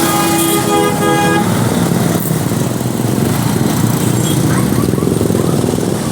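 Agra Mas bus's telolet horn playing a multi-note chord in three short blasts that stop about a second and a half in, followed by the bus's engine running.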